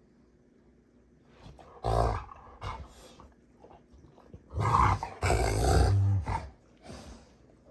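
Two Rottweilers growling and snarling as they play-fight, mouth-wrestling: a short loud growl about two seconds in, then a longer loud stretch of growling from about halfway.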